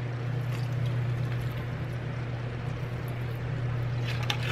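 A steady low hum, under liquor being poured from a glass bottle onto seasoned raw chicken in a plastic bowl.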